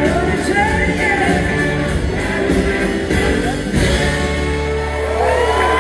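Live band music heard through a large theatre's PA, recorded from the audience: singing over guitars, bass and drums with sliding pitched lines. About four seconds in the band hits and holds a long sustained chord.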